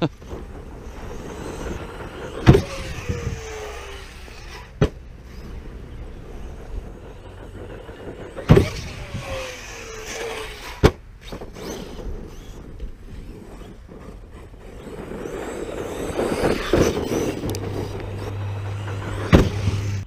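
Arrma Notorious 6S brushless electric RC stunt truck running over rough dirt, its motor whining up and down with the throttle. About five sharp knocks are heard as it lands jumps, and a falling whine follows the two biggest knocks.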